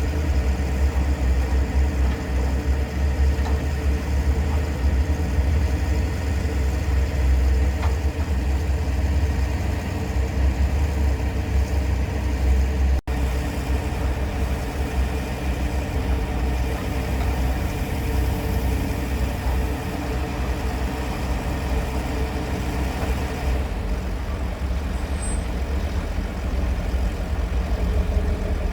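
Heavy vehicle engine running steadily with a deep low rumble, broken by a momentary dropout about 13 seconds in.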